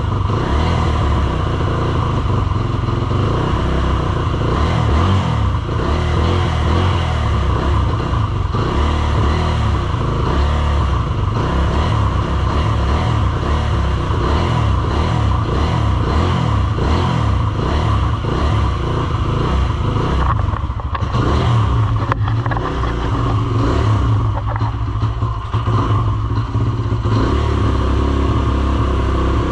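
Kawasaki KLX140R F's single-cylinder four-stroke engine running unevenly just after firing up, kept alive with a little throttle; it has not yet settled to a steady idle after sitting unused for a year and a half. The sound wavers throughout and steadies somewhat near the end.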